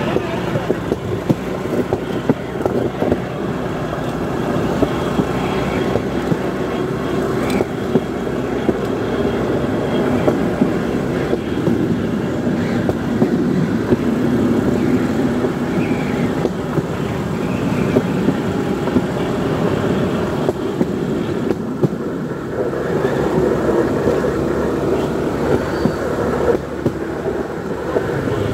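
Motorodillo, a small motorised rail trolley, running along the track: a steady engine hum with the rattle of steel wheels on the rails, broken by frequent short sharp clicks and knocks.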